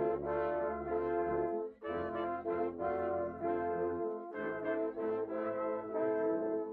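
Background music: brass-led instrumental with sustained horn and trombone-like chords over a bass line, changing chords every half second or so.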